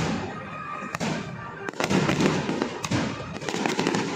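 Fireworks going off: sharp bangs about a second apart, then a dense run of rapid crackling over a low rumble.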